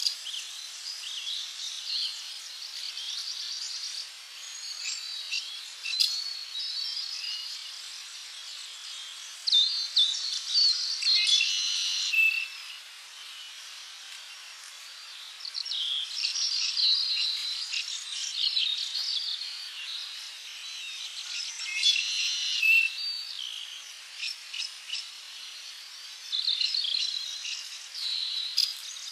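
Several birds chirping, trilling and whistling over a steady insect-like hiss, in louder and quieter bouts.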